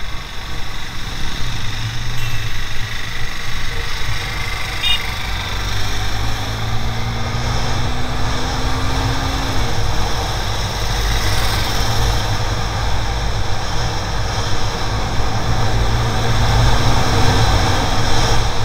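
Sport motorcycle under way, heard from a bike-mounted camera: heavy wind rumble on the microphone over the engine, with tyre hiss from the wet road. The engine note climbs steadily for a few seconds, drops off suddenly about halfway through as it shifts gear, and climbs again near the end.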